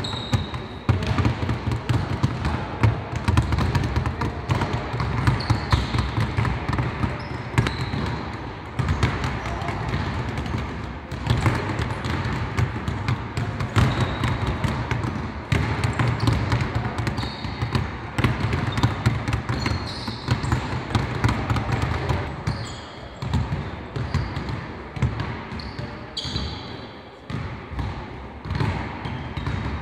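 Basketballs dribbled hard and fast on a hardwood court, several balls at once making a dense, uneven stream of bounces. Short high sneaker squeaks come in now and then.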